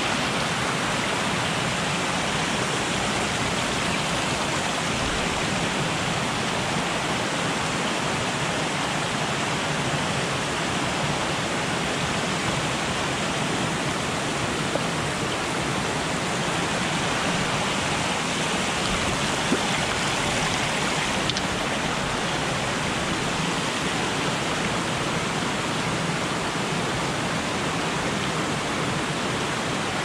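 Steady rushing of a rainforest creek's running water.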